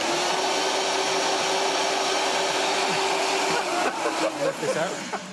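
High-speed countertop blender running steadily, blitzing blanched parsley into parsley oil, with one steady motor whine; it switches off about four seconds in.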